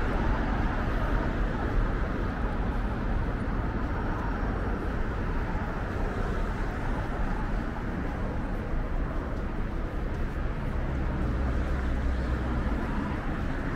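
Steady traffic noise from a busy multi-lane city road, a continuous rumble of passing cars and buses, with a deeper rumble swelling near the end.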